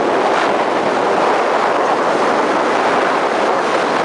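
Strong wind blowing across the microphone: a loud, steady rushing.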